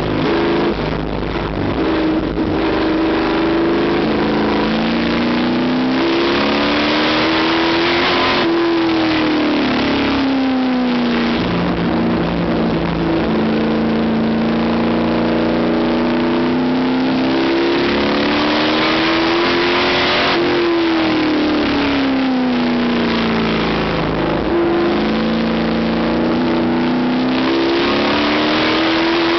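A 350-horsepower stock car's engine heard from inside the cockpit at racing speed. Its pitch climbs steadily for several seconds on each straight, then drops away into the turns. This happens twice, and a new climb begins near the end.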